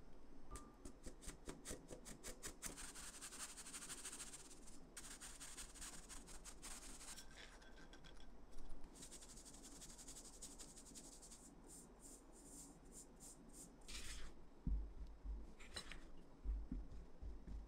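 Flour and cocoa powder sifted through a fine metal mesh sieve into a glass bowl: a scratchy rustle with rapid light taps as the sieve is shaken. Near the end a spatula scrapes and knocks through the mix in the bowl.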